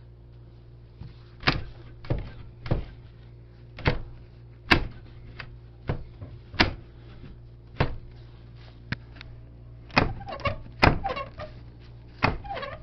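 A series of sharp, irregularly spaced knocks and bangs on a door, about a dozen in all, the loudest near the middle and near the end, over a steady low hum.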